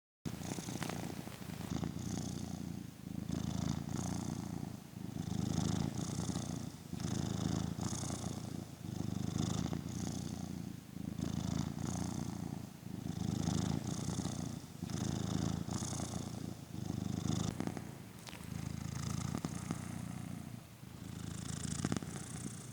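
Domestic cat purring steadily at rest, the purr swelling and easing with each breath about every two seconds.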